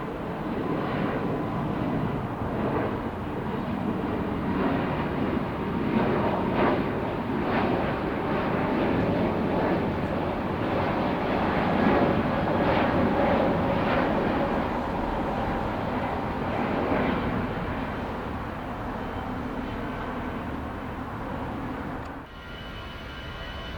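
Jet aircraft taking off, its engine roar swelling to a peak about halfway through, then fading as it moves away. Near the end the roar cuts off abruptly to a quieter background with a thin steady whine.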